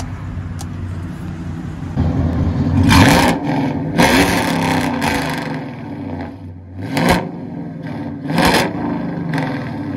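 Chevy Silverado 6.2-litre V8 through long-tube headers, high-flow cats and a Borla ATAK cat-back dual exhaust: idling for a couple of seconds, then revved in several short throttle blips, each rising and dropping back to idle.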